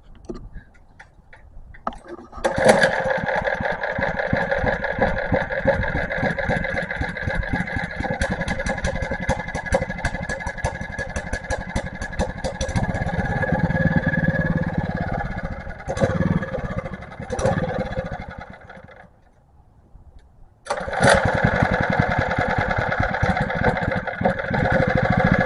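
Small gasoline engine started, catching about two seconds in and running with a rapid, uneven firing beat. It sputters and dies a few seconds before the end, then catches again and runs on. It is running poorly and bogging down, for reasons the owners have not found.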